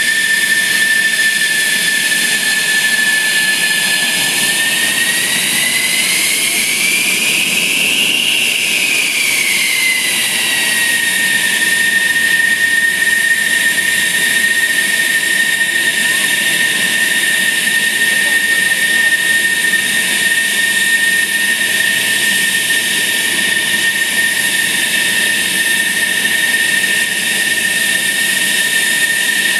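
F-16 fighter's jet engine running on the ramp during startup checks: a loud, steady turbine whine over rushing exhaust noise. About five seconds in, the whine rises in pitch and then falls back to its earlier note over several seconds.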